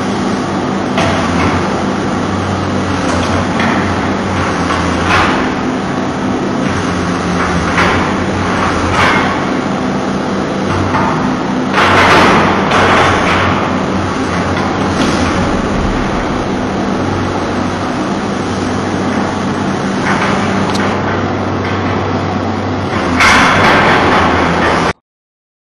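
Excavator engine running steadily while its hydraulic rotating timber grab handles logs, with scattered knocks and clatters of logs striking each other. The clatter is loudest about halfway through and again near the end, and then the sound cuts off suddenly.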